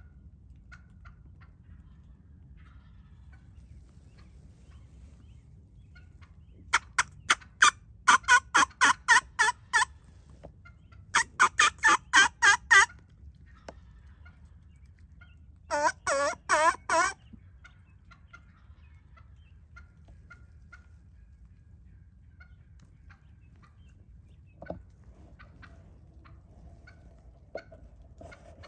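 Wild turkeys calling at close range: two runs of loud, rapid hen yelps, then about sixteen seconds in a short, lower, throatier burst, a tom gobbling.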